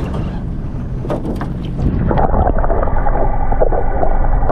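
Steady low rumble of wind buffeting the microphone, with a few faint knocks about a second in.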